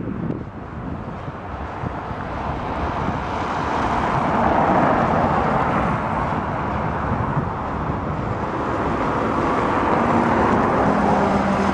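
Freight train of loaded log wagons rolling past: a steady rushing rumble of wheels on rails that swells over the first few seconds, eases and builds again. A low steady hum comes in near the end.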